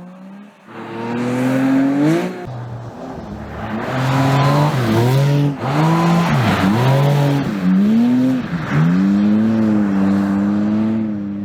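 Porsche 718 Cayman GT4 RS's naturally aspirated flat-six exhaust, revving up and down again and again under hard driving, with a sudden drop in revs about two seconds in, then holding a steady high note before fading near the end.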